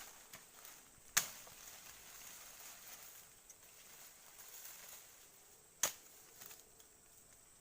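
Two sharp knocks or snaps, about four and a half seconds apart, over a faint steady hiss.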